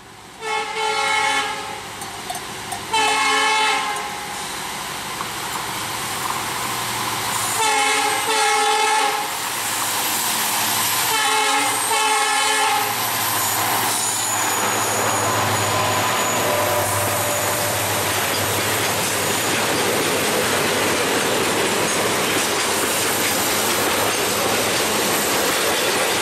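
Train horn sounding in several blasts over the first half, some of them doubled. From about halfway on, a diesel-hauled container freight train rolls past close by with a steady, loud rumble and clatter of wheels.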